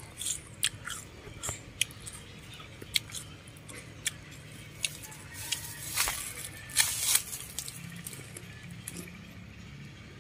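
Crunchy bites into a crisp wax apple, then chewing. There are several sharp crunches, the loudest two a little past the middle.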